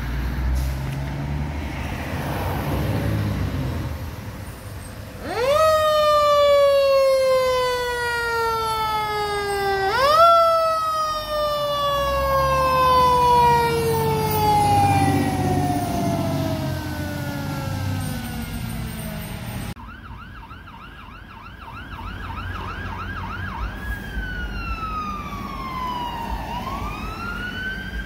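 Fire truck driving past with its siren going over the engine's rumble: the siren winds up quickly and falls away slowly, twice. Then a second siren yelps in a rapid warble for a few seconds and switches to a slow wail.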